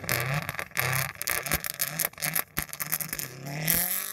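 Rally car engine revving in repeated short rising bursts as the car pulls away slowly on a snow-covered dirt track, with scraping and crackling from the tyres churning the snow.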